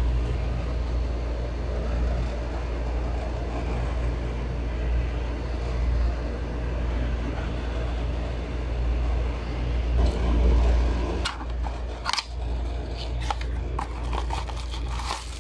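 A steady low hum in the background; from about eleven seconds in, clicks and rustles of card and plastic packaging being handled.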